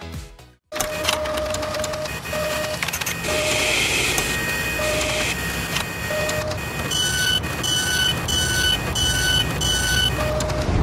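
Just under a second in, the music fades out and mechanical sound effects take over: a steady whirring, clattering machine noise like servos and motors at work, broken by short electronic beeps. Single low beeps come every second or so, and near the end there is a run of five quick higher beeps.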